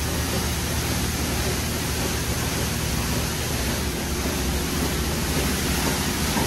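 Coleman Hanna Water Wizard touchless car wash gantry spraying high-pressure water over a car: a steady, dense hiss of spray with a low, steady hum underneath.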